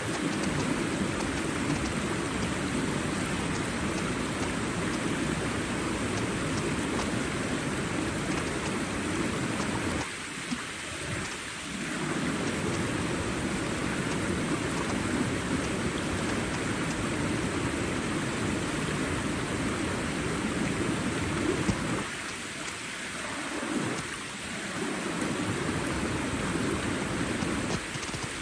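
Steady rushing of water, an even noise heavy in the low range. The low rumble eases briefly twice, about ten seconds in and again a little past twenty.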